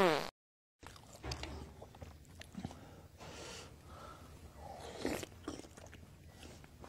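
A short falling electronic sweep cuts off right at the start. After a brief silence comes a man eating from a bowl with a spoon: quiet sips and chewing with small clicks.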